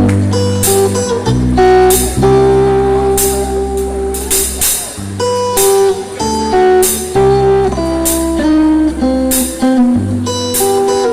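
Live rock band playing an instrumental passage: guitar with bass and drums, notes changing every half second or so.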